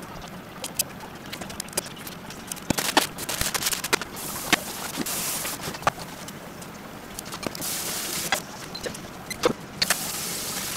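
Cooking sounds at a kitchen stove, sped up: a quick scatter of clicks and clatter from tongs, pots and utensils, with several bursts of hiss from about the middle on.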